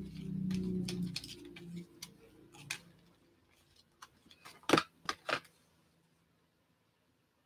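Rigid clear plastic card holders clacking against each other as a stack of cased trading cards is handled. There is a single click near three seconds in, then three sharp clacks in quick succession about five seconds in.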